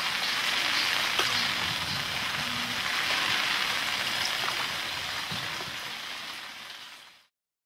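Steady water hiss, like rain or a stream, with a faint low hum beneath it; it fades out near the end.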